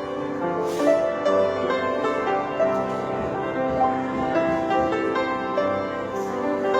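Solo piano playing an old Thai popular song: a melody over held chords, with the notes ringing on.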